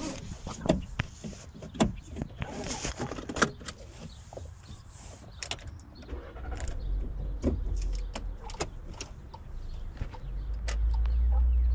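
A few sharp clicks and knocks inside a car cabin, then a Volkswagen car's engine running with a low rumble that comes in about six seconds in and grows louder near the end as the car gets moving.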